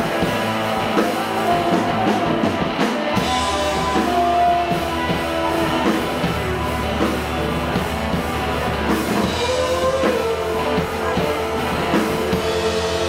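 Live rock band playing: electric keyboard, saxophone, bass guitar and drums. A low bass part comes in about three seconds in, and a long held note runs from about ten seconds in.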